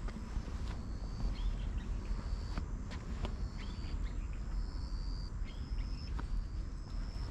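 Outdoor ambience: a few irregular footstep taps and scuffs on asphalt over a steady low rumble, with short high chirps repeating about once a second in the background.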